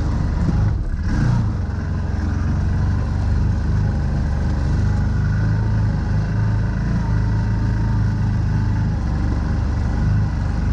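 CF Moto ZForce 1000 side-by-side's V-twin engine running steadily while driving a dirt trail, heard from inside the open cab, with a brief dip in the engine sound about a second in.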